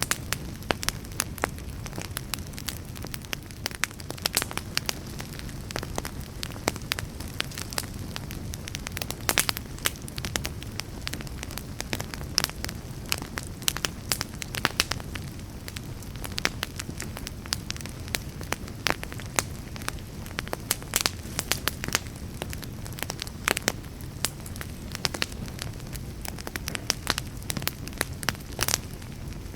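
Campfire crackling steadily, with frequent irregular sharp pops and snaps over a low rumble of flames.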